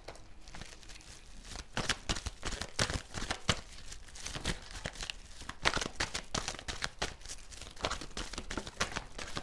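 A deck of tarot cards being shuffled by hand: an irregular run of quick, papery flicks and snaps of card against card.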